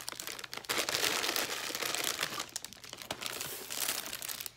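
Plastic candy packaging crinkling as it is handled: foil-plastic gummy-bear bags being set down, then rustling as a hand digs into a box of wrappers. The crackle is busiest in the first couple of seconds and thins out near the end.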